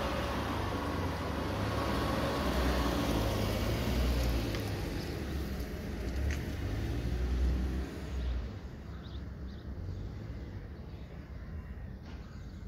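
A motor vehicle running nearby: a low rumble with a faint wavering whine, dropping away about eight seconds in.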